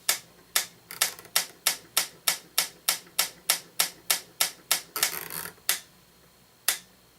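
Franz FB-4 electric metronome, driven by a mains-synchronous motor, clicking a steady beat that quickens to about three clicks a second roughly a second in. A brief scraping noise comes near five seconds, the clicks stop soon after, and one more single click follows.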